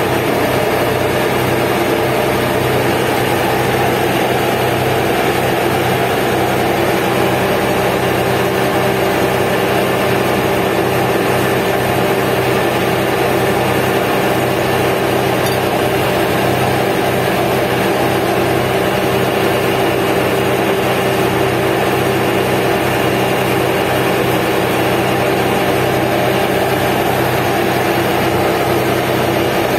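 Boat engine running at a steady speed: an unchanging drone with no rise or fall in pitch.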